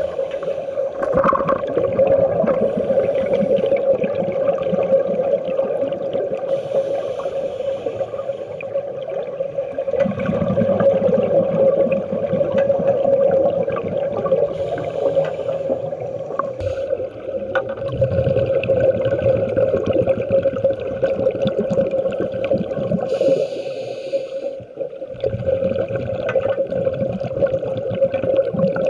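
Underwater sound around scuba divers: a steady hum, with the low bubbling rumble of regulator exhalations rising every several seconds and brief hisses of breaths drawn through the regulator.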